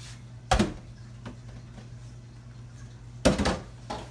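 Two clattering knocks of cookware, one about half a second in and a longer one a little after three seconds, over a steady low hum.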